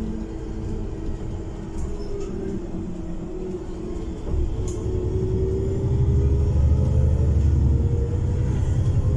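Heuliez GX337 natural-gas city bus heard from inside the passenger cabin, its engine and drivetrain running as it drives. About four seconds in the low drone swells much louder as the bus accelerates hard, with a whine rising in pitch.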